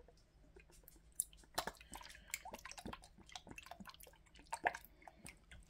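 Liquid aminos being poured over raw chicken quarters in a plastic zip-top bag: faint dripping and splashing, with scattered light clicks and crinkles.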